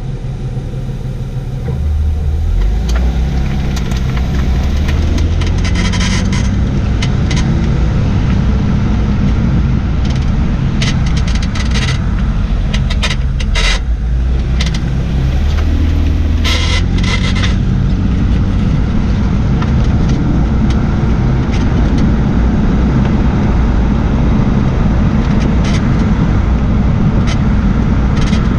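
2004 Jaguar XJ6 (X350) on the move, a steady low rumble of road and running noise that grows louder about two seconds in, with short creaks and squeaks from the rear air suspension scattered through it, most often in the first half. The owner is unsure whether the squeak comes from a bad or newly fitted rear air strut or from a failing bushing.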